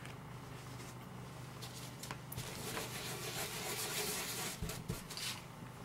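Quiet room tone with a steady low hum and faint scuffing from hands moving over the work table, plus two soft low knocks about four and a half seconds in.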